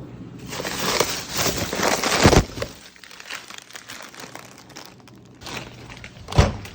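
Crinkling, rustling handling noise, with a sharp knock about two seconds in and another near the end.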